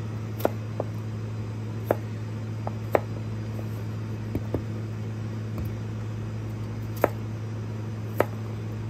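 Kitchen knife cutting cucumber into sticks, the blade tapping the cutting board in about nine short, irregular knocks. A steady low hum runs underneath.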